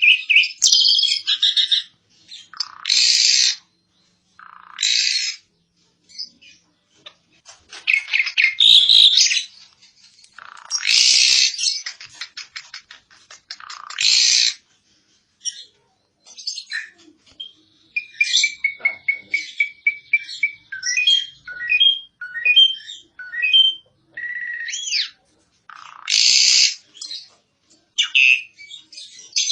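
Asian pied starling (jalak suren) singing a varied song of loud, harsh bursts and rattling notes, with a run of short whistled and chattering notes from about 17 to 25 seconds, then more harsh calls near the end.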